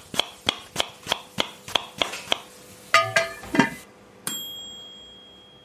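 Outro sound effect: steady ticking, about three ticks a second, then a few short pitched notes and a single bell ding that rings on and fades.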